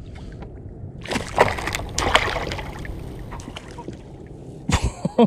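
Water splashing and sloshing against a kayak's hull for a second or two, then lighter lapping, with a single loud thump near the end.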